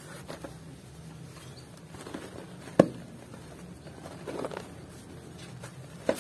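A dry lump of cement snaps in two under the hands with one sharp, loud crack about three seconds in, followed by softer crumbling and gritty crackles as the broken pieces are squeezed, and another small snap near the end.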